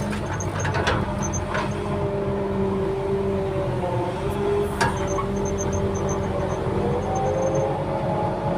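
Heavy earth-moving machine running under load: a steady engine with a whine that slowly shifts in pitch, and a few sharp metallic knocks, several near the start and one about five seconds in.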